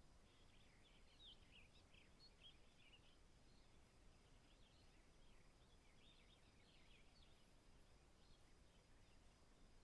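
Very quiet natural ambience: faint, distant birds chirping in short clusters, once near the start and again around the middle, over a low background hiss.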